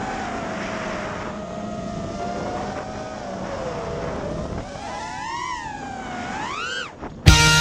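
Brushless motors and three-blade props of a 5-inch FPV racing quadcopter (Brotherhobby Returner R3 2207 2550kv on a 5S battery), heard from the camera on board: a whine that wavers up and down with the throttle over a rushing noise. About five seconds in it swoops down and then climbs steeply, cutting off just before music returns.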